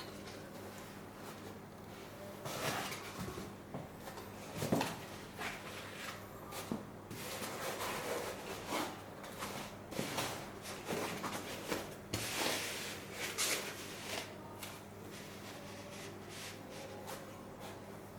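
Irregular short knocks and rubbing of objects being handled on a bench, over a steady low electrical hum.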